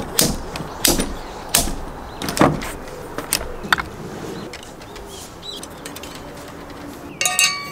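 Metal hooks and clips of a camping hanger rack clicking and knocking as the bar is fitted and things are hung on it, with four sharp knocks in the first couple of seconds and then lighter handling. Near the end, metal camp utensils on the hooks clink together and ring.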